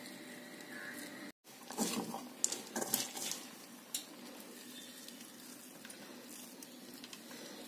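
Puffed paddy rice coated in jaggery syrup rustling and crackling as hands grab and squeeze it into balls. There are a few short crackles in the first half and one more click a little later, then only faint hiss.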